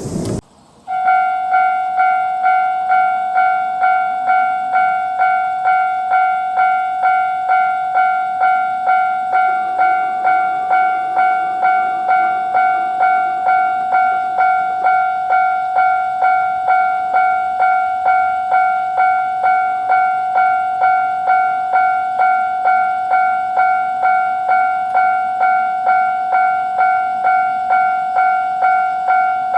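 Japanese railroad level-crossing warning bell going "kan-kan": an electronic bell repeating one high ringing tone in an even beat, about one and a half strikes a second. It starts about a second in after a brief gap.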